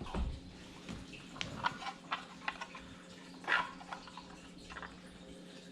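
Scattered light clicks and taps from small screws, tools and a wood block being handled, with a dull thump at the start and a faint steady hum underneath.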